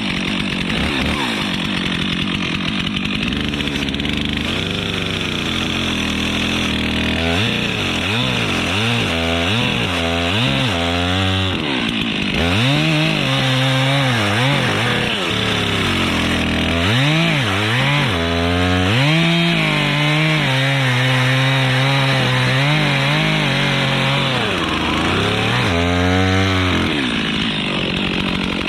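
Stihl two-stroke chainsaw running at high revs through the trunk of a dead pine during the felling cut, its engine note dipping and climbing again and again as the chain loads up in the wood.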